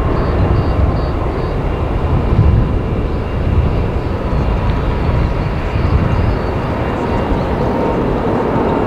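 Twin-engine widebody jet airliner's engines running as it rolls along the runway: a steady jet rumble with a faint thin whine over it, mixed with gusty wind buffeting the microphone.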